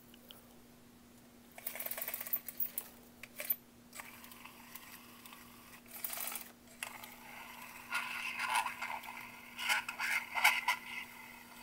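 Freshly restrung pull-string talking mechanism of a vintage G.I. Joe Talking Action Marine on test. A scratchy rasp comes about one and a half seconds in, then a longer thin, scratchy run of sound in the second half as the mechanism plays back.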